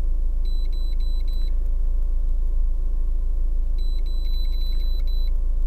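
Honda Civic engine idling, heard from inside the cabin as a steady low hum. Twice, for about a second each, there is a faint high-pitched electronic chirping with ticks: once about half a second in and again near four seconds.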